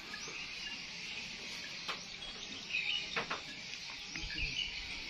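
Outdoor ambience of insects buzzing steadily and birds chirping, with two light knocks about two and three seconds in.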